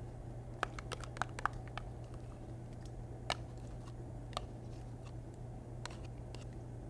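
Spatula scraping mayonnaise out of a measuring cup into a stainless steel mixing bowl: scattered light clicks and taps, several in the first second and a half, then a few more spaced out, over a steady low hum.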